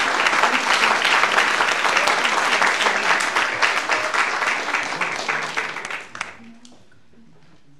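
A congregation applauding, a dense crowd of hand claps that dies away about six seconds in.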